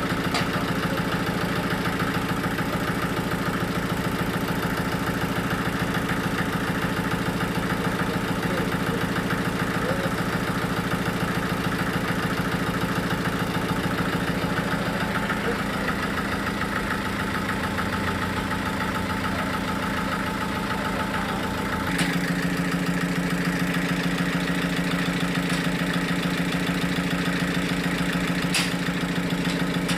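Sawmill engine running steadily at a constant speed; its note shifts abruptly about 22 seconds in.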